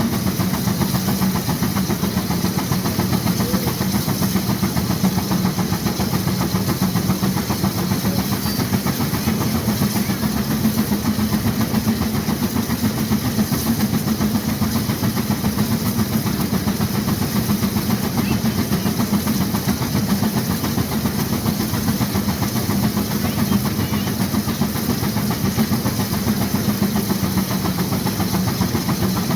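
1916 Case 40 HP steam traction engine working hard against a Baker fan, its exhaust beating fast and steady with a hiss of steam.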